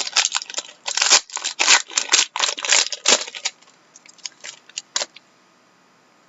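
Trading-card packaging being torn and crinkled open by hand: a quick run of loud, scratchy rustles and rips for about three and a half seconds, then a few lighter clicks.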